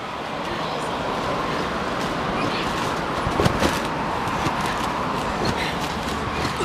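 Steady rushing background noise, with a few soft thuds of children landing on a trampoline mat, the clearest two close together about three and a half seconds in.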